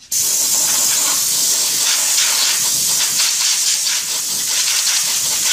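Compressed air hissing steadily from a nozzle, blowing dirt off the top of the fuel tank around the fuel pump module so none falls in when the pump comes out.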